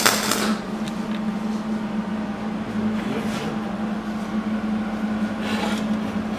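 A welder's arc crackling as it fills a drilled hole in a car's sheet-steel inner fender, cutting off about half a second in. A steady low hum runs underneath, with two short, fainter bursts of noise later on.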